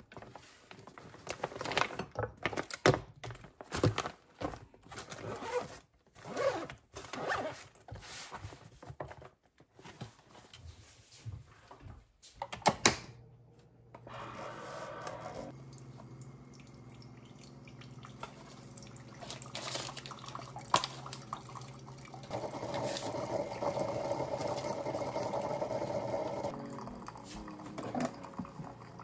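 Crinkling and clicks of an insulated lunch bag being handled, then from about halfway a single-serve coffee maker running with a steady hum as it dispenses hot water into a mug, louder for a few seconds near the end.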